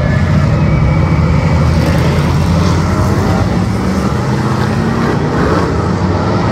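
V8 Hotstox stock car engine running loud and steady.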